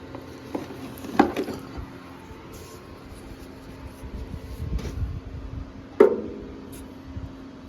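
Knocks and clanks from handling an air handler's old indoor coil and its metal panels: two sharp knocks with a brief ring, about a second in and about six seconds in, and a low rumbling shuffle between them over a steady background hum.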